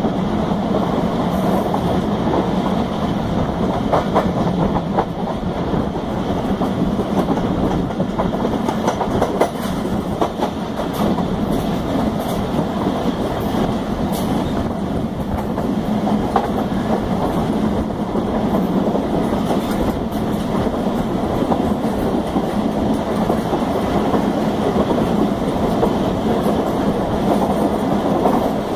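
Moving passenger train heard from aboard: a steady rumble of the carriage, with the wheels clacking now and then over the rail joints.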